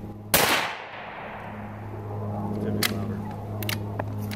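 A single shot from a heavy-barrel Savage .17 HMR bolt-action rifle: one sharp crack with a fading echo. Several short clicks follow near the end as the bolt is worked. A steady low hum runs underneath.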